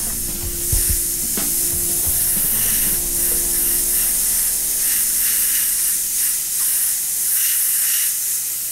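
Airbrush spraying paint: a steady hiss of air and atomised paint that swells a few times as the trigger is worked.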